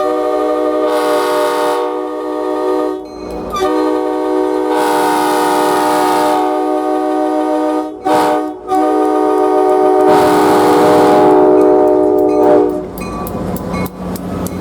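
Locomotive air horn of New Hope Railroad RP39-2C 901 sounding a horn show: three long blasts of several seconds each, with short breaks and brief toots between them, ending about a second before the end.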